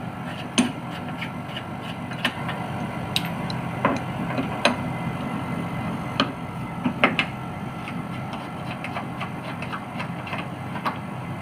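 Split air conditioner's outdoor unit running, a steady hum of compressor and fan, with scattered metallic clicks and taps as a wrench loosens the caps on the two refrigerant service valves.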